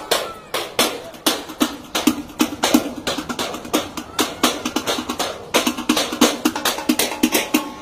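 Trash-can percussion: several drummers beating galvanized metal trash cans, lids and pails with sticks in a fast, steady rhythm of ringing metallic clanks and hits.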